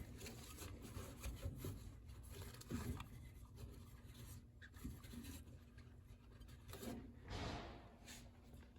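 Faint rubbing and scraping with a few light knocks, typical of hands working under the drinking fountain, with a short hiss about seven seconds in.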